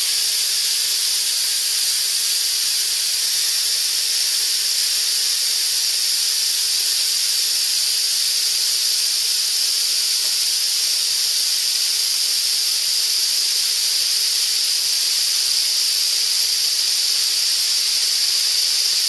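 Compressed air blowing out of the open drain valve on the bottom of a 20-gallon air compressor tank, a loud, steady high hiss as it sprays out the water that has condensed in the tank.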